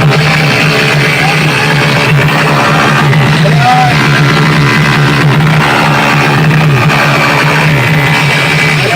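Loud music with a sustained, slightly wavering low tone throughout.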